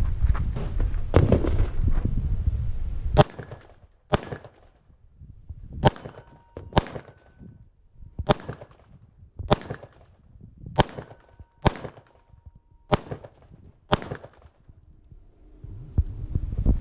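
AR-style rifle shots at a slow, steady pace: about ten single shots, roughly one every second or so, each with a short ringing tail. A low rushing noise fills the first three seconds.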